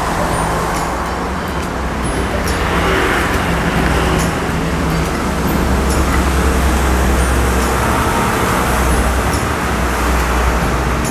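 Steady, loud rumbling background noise with a deep low hum underneath, like road traffic.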